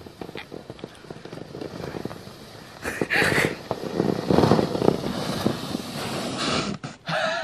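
A person sliding belly-down over packed snow, a rough scraping hiss that gets louder from about three seconds in as she comes closer.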